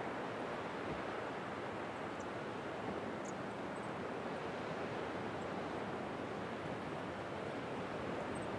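Ocean surf breaking on the beach below, a steady wash of noise, with a few faint high chirps.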